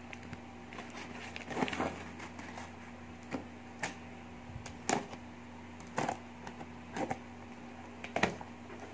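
Scissors cutting through packing tape on a cardboard box, and the box being handled: scattered short clicks, snips and scrapes, roughly one a second, over a faint steady hum.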